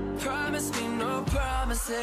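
Background music: a pop song with a singing voice over a steady bass line.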